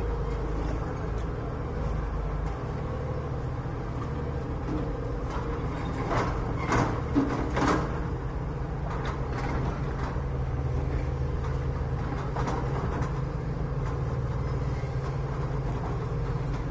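Hydraulic excavator's diesel engine running steadily, with a few sharp knocks about six to eight seconds in.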